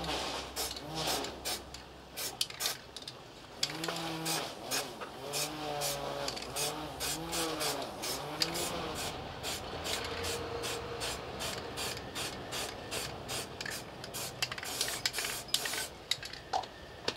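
Aerosol spray can hissing in many short bursts as a protective coating goes onto the bare metal of an absorption fridge's cooling unit. A wavering, pitched, voice-like sound rises and falls about four to nine seconds in.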